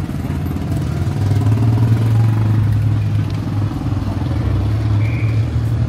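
A motorcycle engine running with a steady low rumble, strongest from about a second in until near the end, over general street traffic noise.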